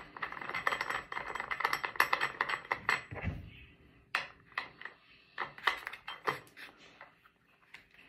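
Small metal clicks and scrapes as an Allen set screw is fitted by hand into a K-Drill ice-auger adapter: a quick run of clicks for about three seconds, then a few separate clicks.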